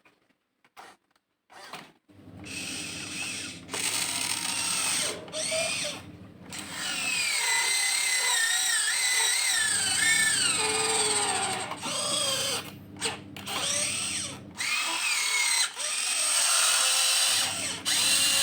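Huina 1592 RC excavator's electric motors whining in repeated runs with short pauses, the pitch sliding up and down. It starts about two seconds in.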